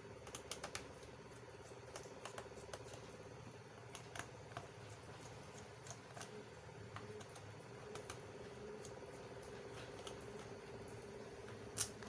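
Small, irregular clicks and taps of a screwdriver, screws and fingers on a laptop's plastic bottom case as its screws are being removed, with one sharper click near the end.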